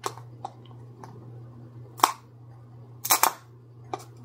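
Sharp plastic clicks and snaps from a small clear plastic jar of loose setting powder being handled and its sifter picked at with a thin tool. There are about five clicks, with two close together a little after three seconds in, over a low steady hum.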